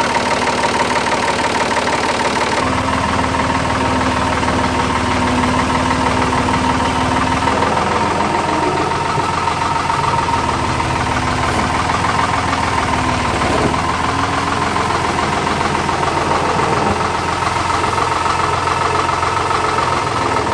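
Ford 555 backhoe loader's engine running steadily while the front loader scoops dirt, its pitch shifting a little at times as the machine works.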